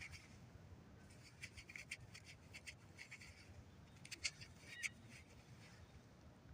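Near silence with faint scratching and scattered light clicks from close handling. The strongest clicks come about four to five seconds in.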